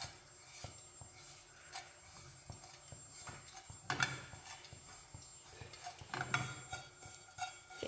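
Fresh tea leaves rustling and scraping against a small non-stick frying pan as fingers toss them during pan-firing (kill-green), with a few louder taps about four seconds in and again just past six seconds.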